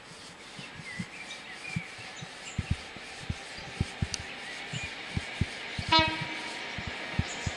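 Class 43 HST power car's horn sounding one short single-note toot about six seconds in, a driver's greeting tone, over the low rumble of the approaching high-speed train, with scattered low thumps throughout.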